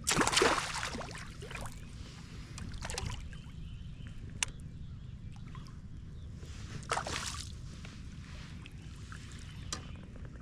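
Water splashing and sloshing at the side of a kayak in three bursts, the first the loudest, with a few light knocks in between.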